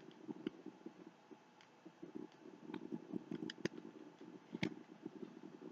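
Faint handling noises: scattered light clicks and taps, a few sharper ones in the middle, as items from an unboxing are picked up and set down.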